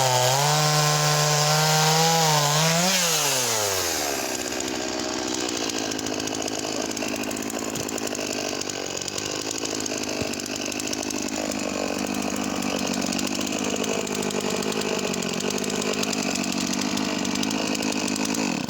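Makita DCS4610 45cc two-stroke chainsaw running at high revs. About three seconds in, the revs rise briefly and then drop steeply, and the saw runs on at a lower, slightly wavering speed until the sound cuts off suddenly at the end.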